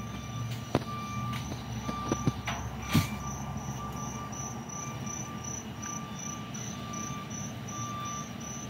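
Crickets chirping in a steady, even pulse over the low hum of idling emergency vehicles, with a few sharp knocks in the first three seconds, the loudest about three seconds in.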